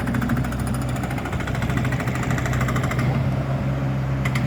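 Jackhammer pounding in a fast, even rhythm, stopping about three seconds in, over the steady hum of a running diesel engine from the construction equipment. A couple of sharp clicks come near the end.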